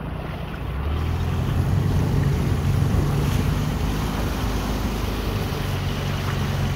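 Small outboard motor running steadily, with water rushing past the hull and wind on the microphone.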